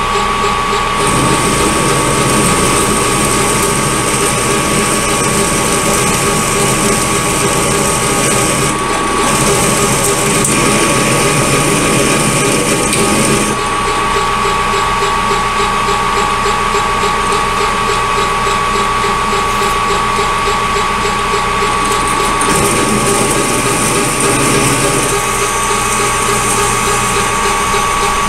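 Metal lathe running with a steady gear whine while a two-flute drill in the tailstock chuck cuts a starting hole in the end of the spinning workpiece. The rough cutting noise comes and goes in stretches over the motor's steady tone.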